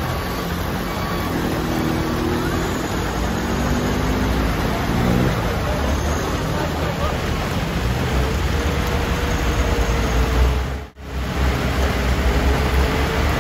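Heavy rain hissing on the road, with the low rumble of a Hino Ranger truck's diesel engine straining as it crawls through a tight hairpin, its pitch rising for a few seconds early on. The sound drops out for an instant near the end.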